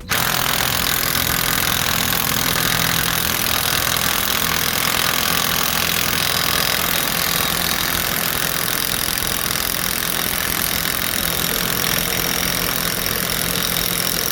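A machine running steadily with a loud hiss and a low hum underneath, starting and stopping abruptly.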